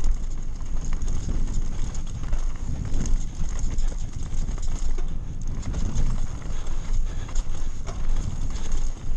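Mountain bike rolling fast over a rocky dirt trail: a constant low rumble of knobbly tyres on dirt and stones, with irregular clattering knocks as the bike rattles over rocks and roots.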